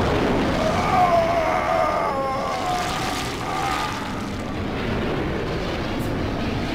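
Cartoon sound effect of a spacecraft's engines firing: a loud rushing roar that starts suddenly, with a wavering whine over it for the first few seconds.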